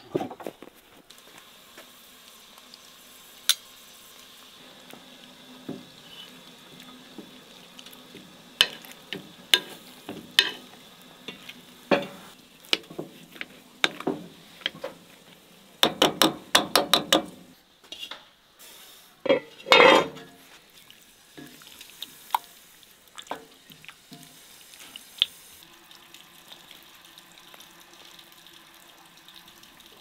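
Metal potato masher working boiled potatoes in a metal pot: scattered clicks and knocks, a quick run of strokes about halfway through, and a louder clatter soon after.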